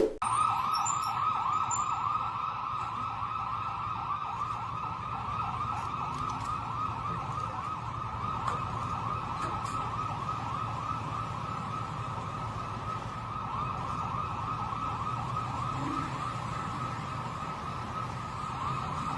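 Ambulance siren in a fast yelp, its pitch sweeping up and down several times a second without a break, over a low vehicle rumble.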